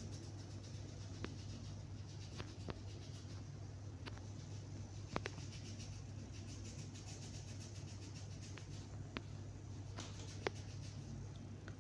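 Faint steady low hum of background noise with light, sharp clicks scattered irregularly, about ten in all.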